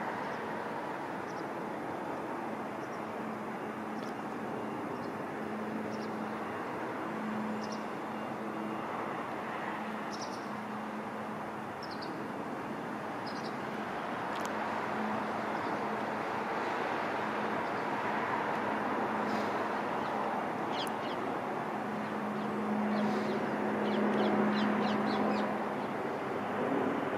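Steady engine rumble with a low hum that comes and goes, getting a little louder near the end. Many short, high bird calls sound over it throughout.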